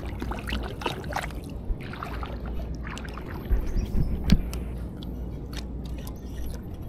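Shallow water sloshing and trickling around someone standing in it, with scattered light clicks and a few louder knocks about three and a half to four and a half seconds in.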